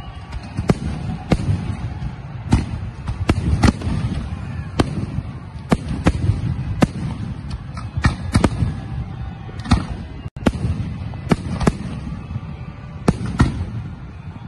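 Fireworks display: an irregular string of sharp bangs from shells bursting, about one or two a second, over a continuous low rumble.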